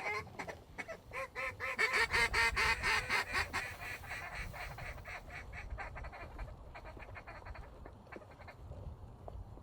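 A rapid string of duck calls, many short notes in quick succession. They are loudest in the first few seconds and thin out and fade by about halfway, over a low rumble.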